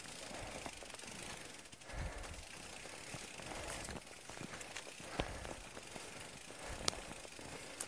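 Bicycle being pushed on foot over a muddy, slippery trail: a faint ratchet-like ticking from the bike's rear hub, with a few sharp clicks and low knocks.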